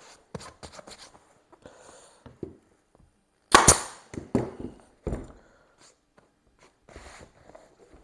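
Sharp clicks and knocks from working a cover onto a motorcycle seat base, with a loud cluster of snaps about three and a half seconds in and two more knocks soon after.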